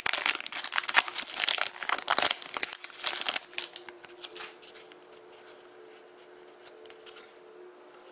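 A trading card pack wrapper being torn open and crinkled, loud and crackly for about the first three and a half seconds, then quieter rustling over a faint steady hum.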